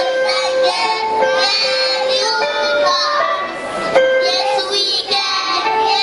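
A children's song: young voices singing over an instrumental backing of steady held notes, running without a break.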